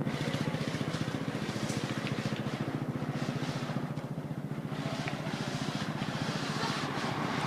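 An engine running steadily nearby, a fast, even low throb.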